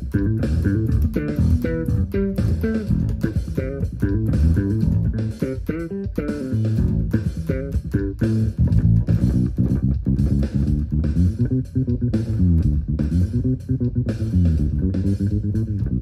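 Six-string fretless electric bass played in a funk groove: a run of quick plucked notes, with notes that slide up and down in pitch in the second half.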